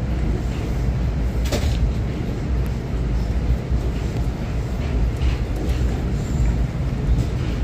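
SEPTA regional rail train running, a steady low rumble with a few sharp clicks and rattles.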